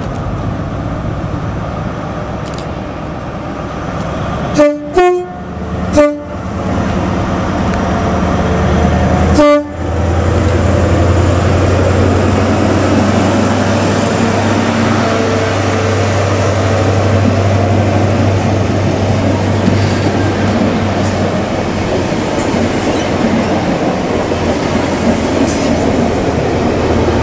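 Four short, loud blasts of a train horn on two notes, about five seconds in, then a GWR Class 43 HST power car's diesel engine running under load as the train pulls out, a steady low drone.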